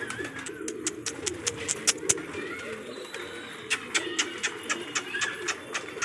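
Domestic pigeons cooing in a low, continuous murmur, with scattered sharp clicks and a few short higher calls.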